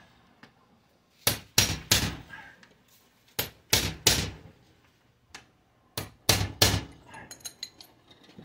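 Claw hammer striking a crescent wrench held against a bent metal storm-door hinge, bending it back into place: three quick sets of three metal-on-metal blows, then lighter clinks near the end.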